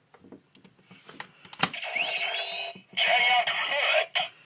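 A sharp plastic click as the switch goes into the Kamen Rider Fourze Driver toy belt. The belt's small speaker then plays electronic sound effects and a recorded voice call, in two short bursts.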